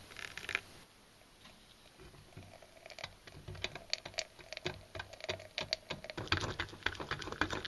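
Wild-strawberry purée being strained through a fine metal mesh strainer: a brief trickle of white wine poured in at the start, then a run of small irregular clicks, ticks and squishes as the pulp is worked through the mesh over a glass container, getting busier toward the end.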